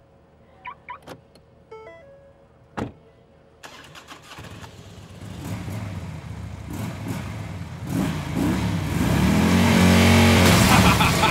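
A car engine starts and revs, growing steadily louder over several seconds with rising and falling pitch. Before it, a few faint clicks and short beeps.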